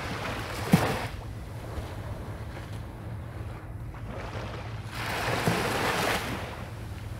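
Small waves splashing at the water's edge: a sharp slap about a second in and a longer wash from about five to six seconds, over a steady low wind rumble on the microphone.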